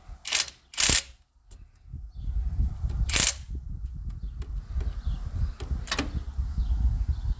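Four sharp metallic clanks or knocks, two close together at the start, one about three seconds in and one near six seconds, over a low uneven rumble of handling noise: tools and parts being knocked about during an engine tear-down.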